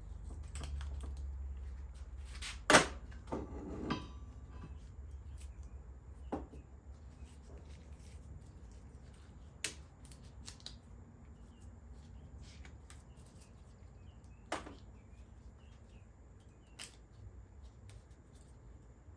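Scattered metal clicks and knocks from hand work on a driveshaft U-joint. A sharp knock about three seconds in is the loudest, followed by a short cluster of clinks, then single clicks every few seconds.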